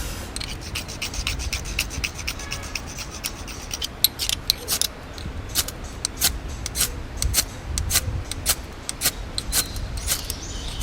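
A ferrocerium fire-starter rod being struck again and again with its striker in an attempt to light a campfire: many short, sharp scrapes, quick and close together at first, then fewer and harder from about four seconds in.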